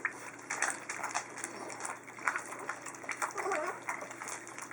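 Chinook puppies lapping and slurping at a shared feeding pan, a quick run of wet clicks, with a few brief high whimpers.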